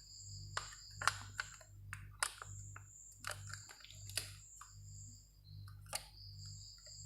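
Irregular light clicks and taps of a laptop's small metal and plastic parts being handled while a 2.5-inch SSD is worked into its drive mount, which is a tight fit.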